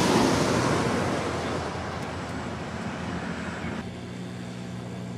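Jet engine noise of a twin-engine airliner landing, a broad rushing sound that slowly fades over about four seconds. It cuts off suddenly near the end, and a low steady hum follows.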